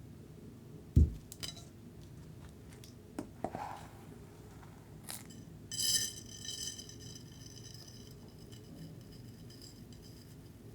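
Hard objects handled on a tabletop: a dull thump about a second in, a few light clicks and scrapes, then one ringing clink near the middle that fades over about a second.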